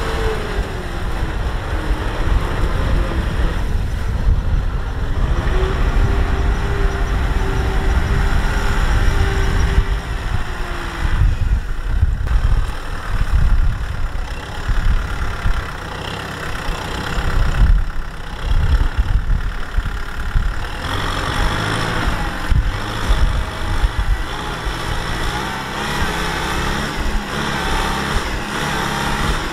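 Kubota M6040SU tractor's four-cylinder diesel engine running under load as it pulls through deep mud. Its pitch drops in the first couple of seconds, rises again and holds steady for a few seconds, then changes with the throttle through the rest.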